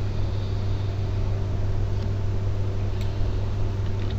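Steady low hum with a hiss over it, the background noise of a desktop recording microphone, broken by a couple of faint clicks.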